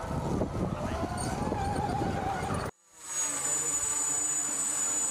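Rattling with a rising motor whine, then after a sudden break about two and a half seconds in, a small hand-held quadcopter's electric motors and propellers spinning with a steady high-pitched whine.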